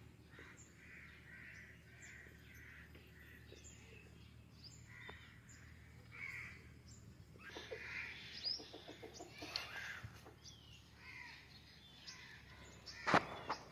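Faint, scattered bird calls and chirps from the yard's chickens and other birds, with a rapid run of clucks partway through. A single sharp knock near the end.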